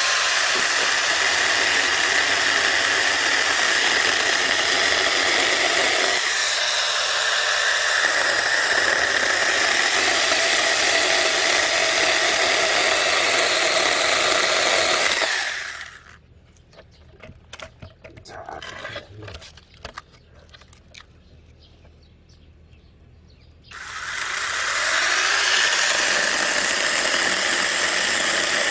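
Cordless mini chainsaw running and sawing through a small wooden log with a steady whine. Midway it stops for several seconds, leaving only a few small clicks and knocks, then starts up again and keeps cutting.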